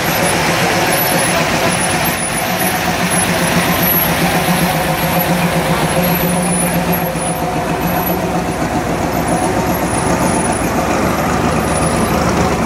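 Old cars' engines running low and steady as they roll past slowly in a line.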